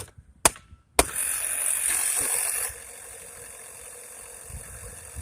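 Three sharp knocks about half a second apart, then a small air compressor's electric motor starts up: a loud rushing noise for about a second and a half, settling into a steady running hum.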